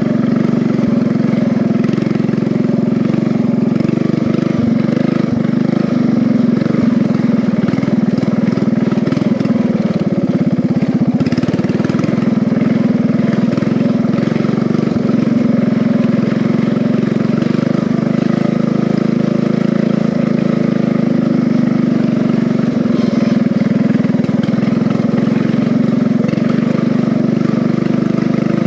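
Riding-mower engine running steadily under load while the converted race mower is driven, with little change in speed.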